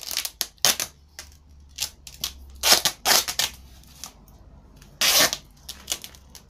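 Duct tape pulled off the roll in a series of short, noisy strips and pressed onto a tape-covered football, with the crinkle of the tape layers under the hand. The loudest pull comes about five seconds in.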